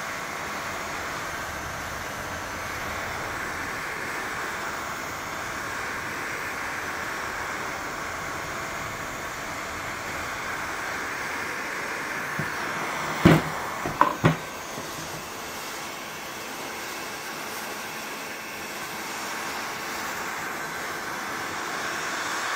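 Hot-air heat gun blowing steadily while it heats the headlight to soften the lens sealant. A short cluster of sharp knocks comes a little past halfway.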